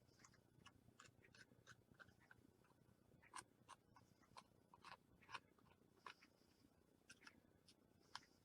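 Near silence, with faint scattered clicks and light taps of thin wooden model pieces being handled and glued.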